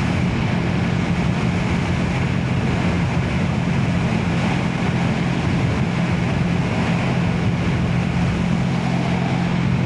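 Motorcycle engine running at a steady cruise under a constant rush of wind and road noise.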